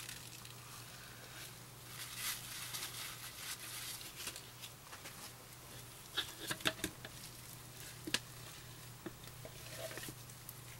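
Faint handling noise at a soap-making bench: soft rustling of a crumpled wrapper in gloved hands, then a few light clicks and taps about six seconds in and once more near eight seconds, over a steady low hum.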